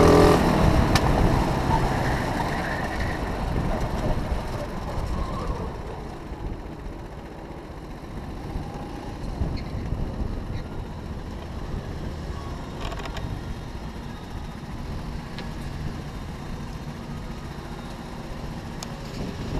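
Go-kart engine coming off full throttle: its note fades and drops over the first few seconds as the kart slows, then runs low and steady while the kart rolls slowly in to stop.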